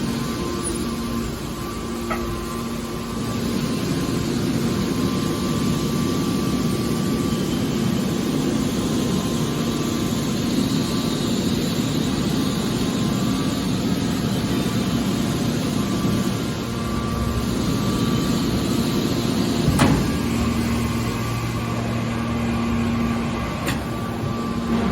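Heavy industrial machinery running with a steady drone and hum, with a single sharp knock about twenty seconds in.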